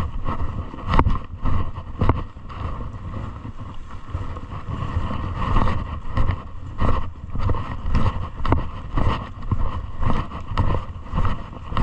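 Footsteps on a wet dirt trail at a walking pace, about two steps a second, under steady wind rumble on the microphone.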